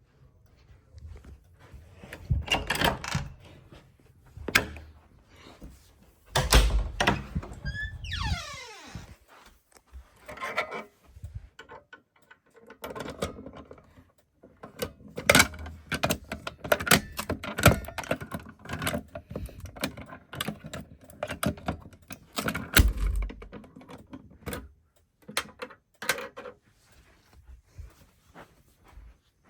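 Irregular knocks, clicks and rattles, like keys and a door being handled, with a sweep falling in pitch about eight seconds in.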